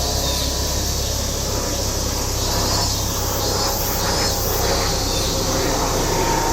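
A dense chorus of cicadas shrilling steadily, with faint bird chirps, over a steady low rumble.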